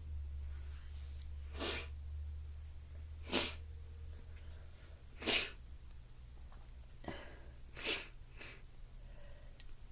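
A person sneezing over and over: four loud sneezes about two seconds apart, with a smaller one just after the last.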